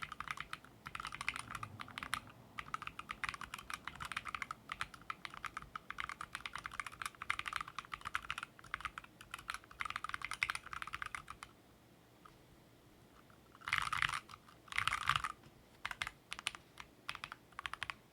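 Typing on a DROP OLKB Planck mechanical keyboard with Gateron Baby Kangaroo switches and MT3 keycaps: fast, continuous keystrokes for most of the first twelve seconds. Then a pause of about two seconds, two short dense flurries of keypresses, and a few scattered single strokes near the end.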